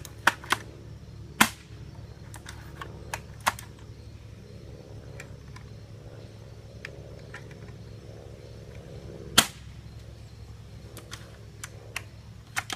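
Sharp mechanical clicks and snaps from a 6 mm airsoft sniper rifle being worked and triggered, a few loud and several faint, the loudest about nine seconds in. The gun is not shooting properly. A steady low hum runs underneath.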